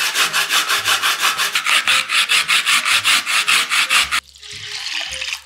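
A carrot grated briskly on a plastic grater: rapid, even rasping strokes at about seven a second, stopping about four seconds in. A softer hiss follows near the end.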